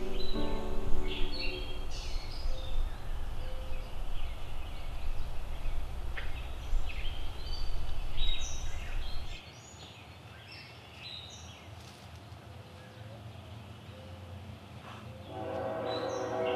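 Scattered short bird chirps, over a steady low rumble that stops abruptly about nine seconds in.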